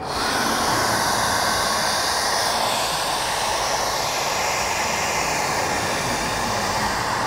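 Handheld hair dryer running steadily, blowing hot air onto a car bonnet badge to soften the adhesive holding it on.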